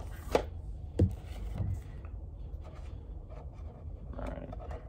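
Hands handling disc cases and packaging: a few sharp plastic clicks in the first two seconds, then soft scraping and rustling.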